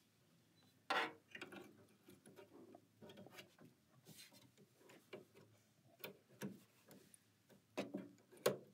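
Scattered light clicks and taps from hands working the needle area of a Janome 500E embroidery machine while threading the needle with its built-in needle threader. The sharpest click comes about a second in, with a few more near the end.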